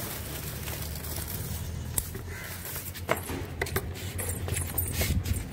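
Scissors snipping among dry bitter gourd vines, with rustling and a few sharp clicks scattered through, over a low steady rumble.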